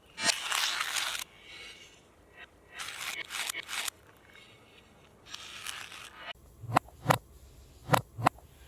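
Reversed playback of handling sounds: three crunching, scraping bursts of about a second each, then four sharp clicks with a low knock in each near the end.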